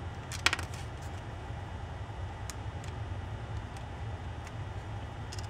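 Light clicks and taps of black plastic case plates and small nuts being handled and fitted together: a quick cluster of clicks about half a second in, then a few faint ticks. A steady low hum runs underneath.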